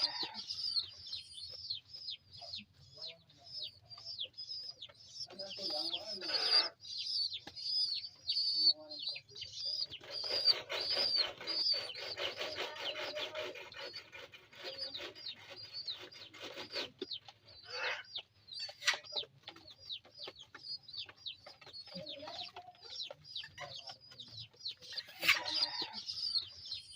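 Pigeon squabs begging: a rapid, continuous run of high, squeaky peeps, each sliding down slightly in pitch. In the middle there is a longer stretch of rustling noise under the peeps.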